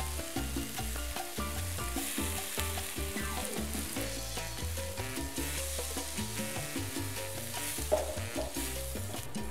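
Shrimp and spice paste sizzling in a hot wok, stirred with a wooden spatula, with coconut milk poured in about four seconds in; one louder knock about eight seconds in. Background music with a steady bass line plays over it.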